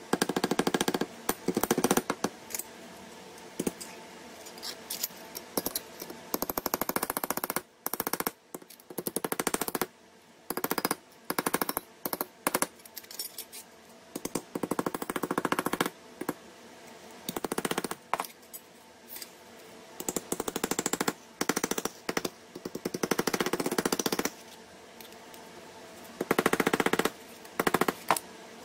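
Steel hammer striking a steel piece on a small cast bench anvil, bending and flattening the metal. The blows come in rapid runs of about a second or two each, with short pauses between runs.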